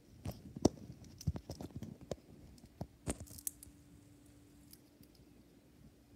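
Hamster cracking and chewing sunflower seeds: a run of sharp cracks and crunches during the first three and a half seconds, then it goes quiet.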